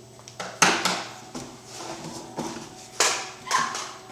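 Two sharp knocks, about two and a half seconds apart, with lighter handling noise between.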